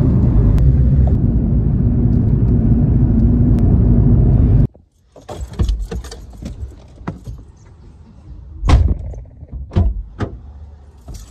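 Car driving, heard from inside the cabin: steady, loud engine and road noise that cuts off suddenly after about four and a half seconds. Then scattered knocks, clicks and rustling of things being handled inside the car, with the sharpest knock a little past the middle.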